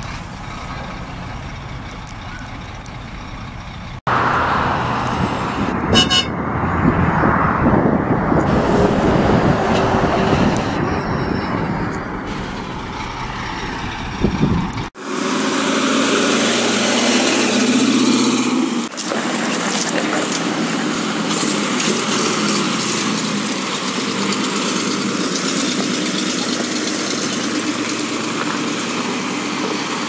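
Fire trucks' engines running as the trucks pull away one after another, the sound changing abruptly twice as one truck gives way to the next. A short toot about six seconds in.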